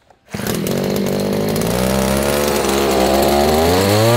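Small 4 hp two-stroke outboard motor, built like a weed eater, catching on a pull of its recoil starter about a third of a second in and then running steadily out of the water, its pitch rising briefly near the end.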